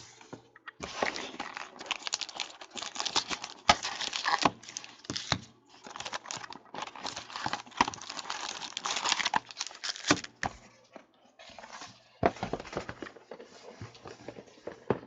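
Plastic packaging crinkling and tearing in irregular crackles as a sealed box of trading cards is opened, busiest for the first ten seconds, easing off briefly, then starting again.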